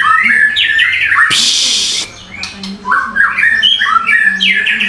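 A songbird singing quick runs of short stepped whistled notes, broken about a second in by a harsh, noisy rasp, then starting the run of notes again.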